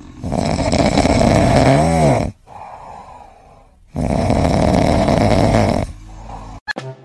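A tabby cat snoring in its sleep: two long, loud snores about four seconds apart, with quieter breathing between them.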